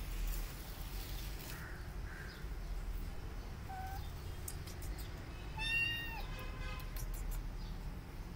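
Tabby kitten meowing once: a single high, drawn-out call a little past halfway through.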